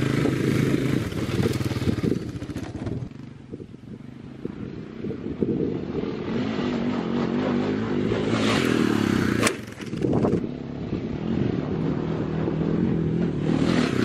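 Quad ATV engine revving as it drives off over corn stubble, fading, then coming back louder under acceleration and passing close by as the machine lifts off a jump near the end.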